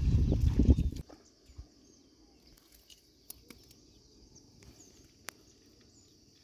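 Rough, rumbling footsteps and movement on pebbly river gravel for about the first second, then stillness. A faint steady high drone of insects remains, with a few soft clicks.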